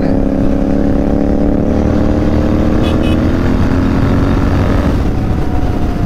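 Royal Enfield 650 parallel-twin motorcycle engine running steadily under way, with wind rushing over the microphone.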